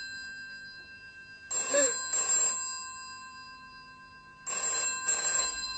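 Desk telephone bell ringing in a double ring, two short rings together, twice about three seconds apart.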